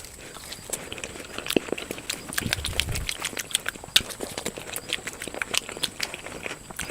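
Close-miked eating sounds: chewing and lip smacking, an irregular run of sharp, wet mouth clicks.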